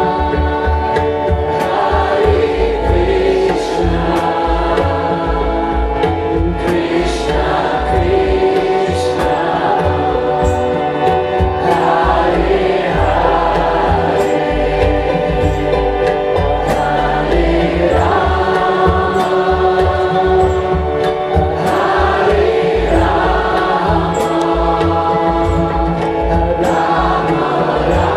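Devotional kirtan chant: many voices singing together over a harmonium's sustained chords and tabla drumming.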